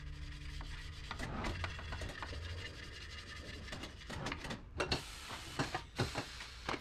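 Rubbing and scraping of a tire worked by hand on the rim of a tire changer, with several sharp knocks and clicks in the last two seconds.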